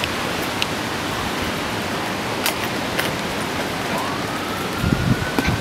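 Hurricane-force wind and rain: a steady rushing hiss with scattered sharp ticks of drops. From about four seconds in, a distant siren rises in pitch, and near the end wind gusts buffet the microphone.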